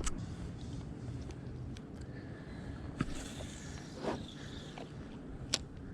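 Handling of fishing tackle in a kayak while a drop shot rig is retied: low rustling with a few sharp clicks and taps, the sharpest about five and a half seconds in.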